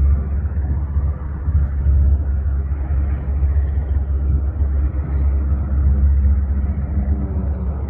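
The nine-cylinder Pratt & Whitney R-1340 Wasp radial engine of a 1945 North American SNJ-6 Texan running with a steady, loud low rumble.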